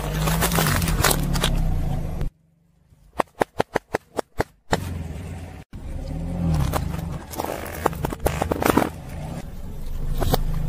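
A car's engine running as its tyre rolls over and crushes objects on asphalt, with crunching and cracking. In the middle, after a brief near-silent gap, a quick run of about eight sharp clicks.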